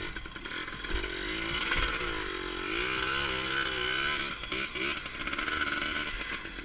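Dirt bike engine running at low speed, its revs rising and falling repeatedly with the throttle.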